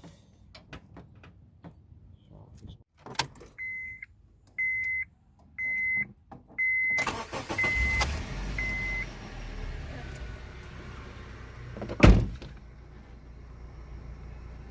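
A car's chime beeps about once a second, then the Honda Civic's 1.8-litre R18 four-cylinder engine cranks and starts about seven seconds in and settles into a steady idle. This is the first start after the upstream oxygen sensor was replaced, and it sounds smoother to the owner. A single sharp knock comes near the end.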